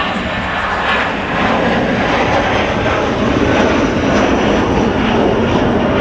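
Jet engines of a Boeing 787-9 airliner running at high power, a loud steady rushing noise with its weight in the low-middle range, growing slightly louder about a second and a half in.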